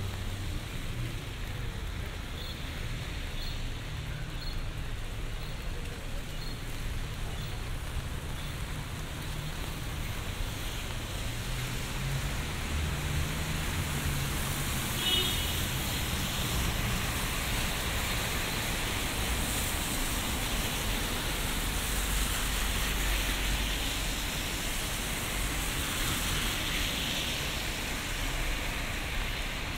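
Steady rain falling on an umbrella and a wet city street, mixed with the hiss of car tyres on wet asphalt and a low traffic rumble. The rain and passing traffic grow louder in the second half.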